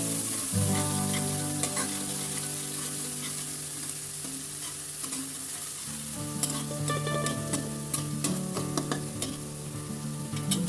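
Bottle gourd leaves sizzling as they fry in a pan and are stirred, with scraping clicks of the spatula against the pan that come more often in the second half.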